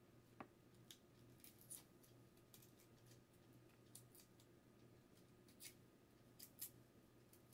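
Very faint, irregular soft clicks and scrapes of a small paring knife peeling the papery skin off garlic cloves.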